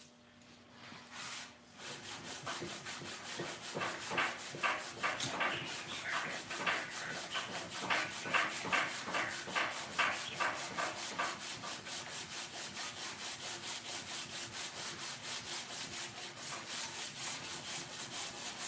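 Rapid back-and-forth hand scrubbing of a 5.3 LS cylinder head's aluminium surface with an abrasive, about five strokes a second, starting about two seconds in. The strokes are heavier between about four and eleven seconds in, as the surface cleans up.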